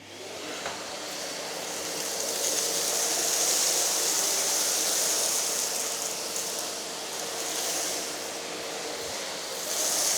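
Numatic Henry Pet cylinder vacuum cleaner running on low suction: a steady airy rush of airflow over the motor hum, building over the first couple of seconds as the motor comes up to speed, with a thin steady whine under it that drops out near the end.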